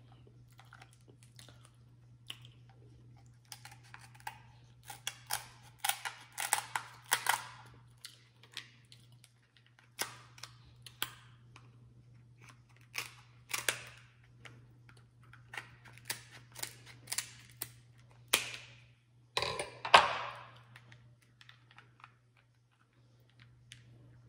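Crab leg shells being cracked and snapped apart by hand: clusters of sharp cracks and crunches, the loudest about eighteen and twenty seconds in.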